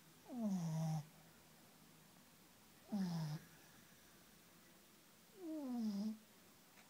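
A sleeping pug snoring: three snores about two and a half seconds apart, each a pitched rasp that falls in pitch, with a hiss over it.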